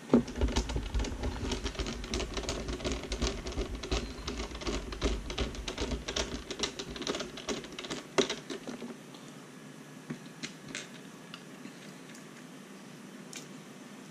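Small hand screwdriver working screws in a plastic RC transmitter case: a fast, dense run of clicks and scrapes with handling knocks for about eight seconds, then only a few scattered clicks.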